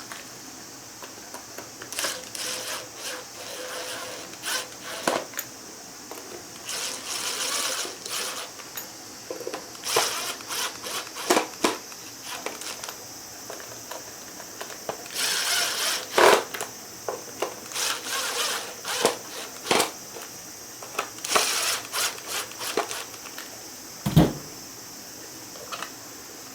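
Workbench handling noises: irregular clicks, knocks and short scrapes of hands and tools working on parts, with one louder knock near the end.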